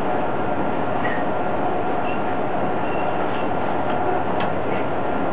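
Uerdingen diesel railbus heard from inside its driver's cab: a steady running drone from the engine and running gear as it moves slowly, with a faint steady hum and a few light clicks near the end.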